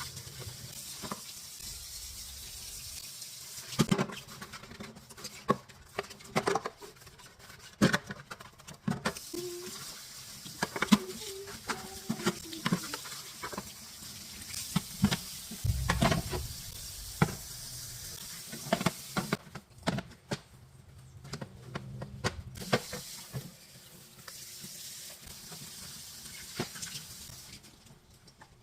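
Irregular knocks, clicks and rubbing from hands cleaning out a refrigerator, with a few short squeaks around halfway.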